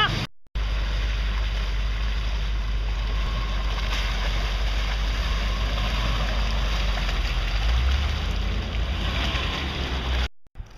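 Land Rover Discovery II's engine running steadily under load as the 4x4 works through deep mud, with a broad rush of mud and tyre noise; the engine note swells about eight seconds in. The sound breaks off briefly just after the start and again near the end.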